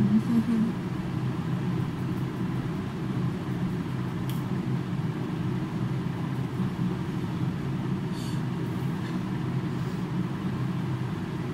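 Steady low mechanical drone of background room noise, with a brief soft hiss about eight seconds in.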